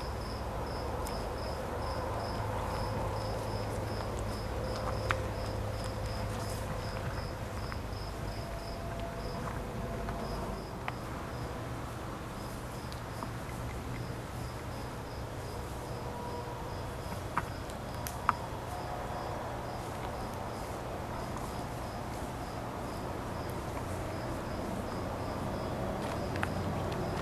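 Crickets chirping at night, a steady high pulsed chirp about three times a second, over a low steady rumble, with a few sharp clicks.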